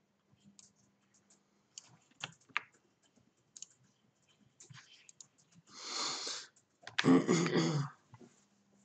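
Sparse, irregular computer keyboard keystrokes and mouse clicks. About six seconds in comes a breathy exhale, then a short, louder sound from a person's voice.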